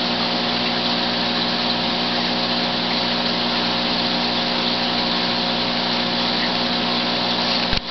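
Aquarium pump running: a steady motor hum under a constant hiss. It dips briefly near the end.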